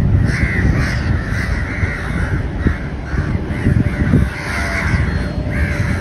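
Crows cawing, a steady run of harsh calls about two a second.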